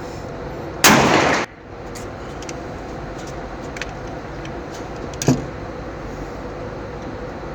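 A loud handgun shot about a second in, then a shorter, quieter crack a little after five seconds, with a few faint sharp clicks between.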